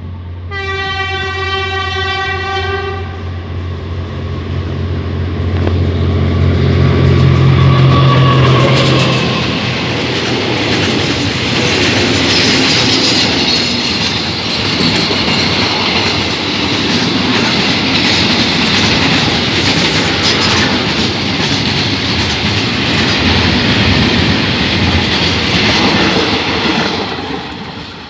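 GE diesel-electric locomotive 4040 sounds one horn blast of about two and a half seconds, and its engine drone swells as it comes past. A long string of oil tank wagons then rolls by, wheels clattering over the rail joints, and the noise fades near the end as the last coach goes.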